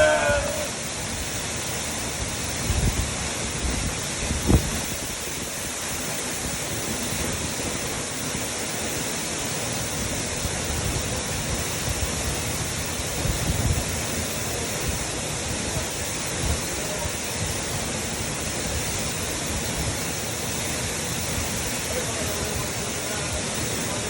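Steady rush of a waterfall pouring down, with a few brief low thumps, the strongest about four and a half seconds in.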